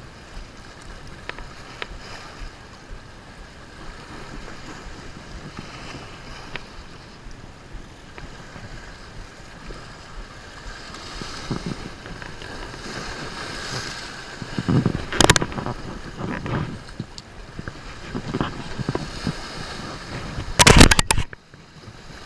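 Small waves washing and splashing against jetty rocks, with wind on the microphone. Two short, loud bursts of noise break in, about two-thirds of the way through and again near the end.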